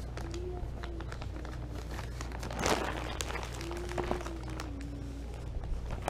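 Plastic zip-top bags of soft plastic fishing baits crinkling and rustling as they are handled, with a louder crinkle a little before the middle.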